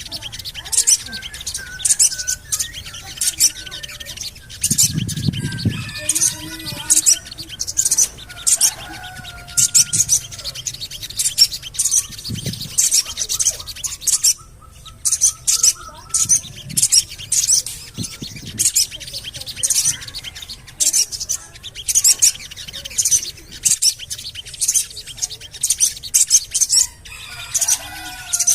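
Sogon bird calling in rapid runs of short, high "cuit cuit" chirps, the bursts coming several a second with only brief gaps. This is a lure call meant to set captive sogon singing.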